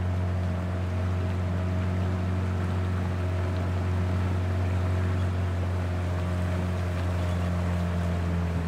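A boat's motor running steadily, a constant low hum.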